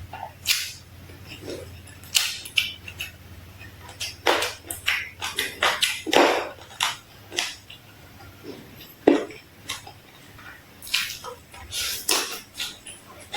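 Eating sounds: irregular short crunches and clicks, with cutlery clinking against a dish, a dozen or more strokes unevenly spaced.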